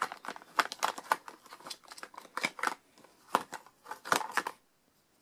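Plastic makeup compacts and cases clicking and clattering against each other and a plastic basket as a hand rummages through them: an irregular run of clicks and knocks that stops near the end.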